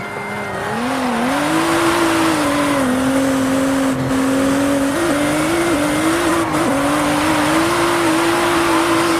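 Race car engine sound effect: a steady engine note that wavers and steps slightly in pitch over a loud rushing noise.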